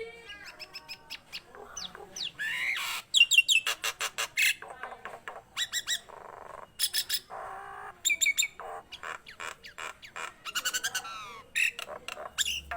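Jalak Nias singing constantly in a varied string of sliding whistles, harsh squawks and fast rattling trills. The loudest notes come about three seconds in.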